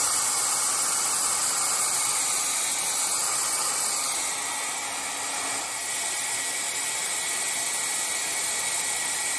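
Conair 1875 handheld hair dryer running steadily: a constant rush of air with a faint whine from its motor. It is blowing hot air at a rate-of-rise heat detector to heat it until it trips.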